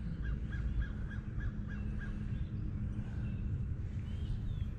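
A bird calling a quick run of about eight short, evenly spaced notes, about four a second, that stops after roughly two seconds, over a steady low rumble.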